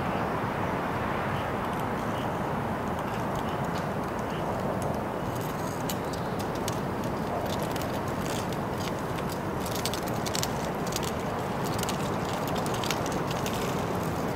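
Outdoor street ambience: a steady low rumble of city noise. From about five seconds in until near the end, a run of quick light clicks and ticks rides over it.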